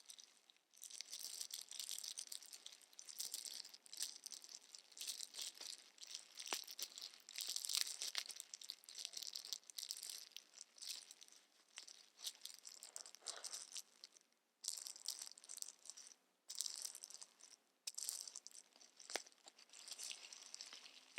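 Makeup packaging being handled and opened: irregular crinkling and rustling with scattered sharp clicks, pausing briefly twice in the second half.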